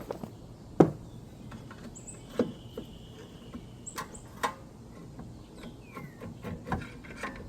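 Brake caliper being worked free of the rotor and bracket: scattered metal knocks and clinks, the loudest about a second in, with a few short high squeaks. The caliper is one that had seized.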